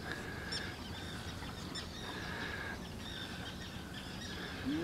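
Small birds chirping repeatedly, short quick notes with some longer held notes, over a steady low rumble.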